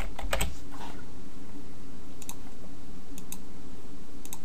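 Computer keyboard keystrokes: a quick run of typing at the start, then a few single key or mouse clicks spaced about a second apart, over a steady low hum.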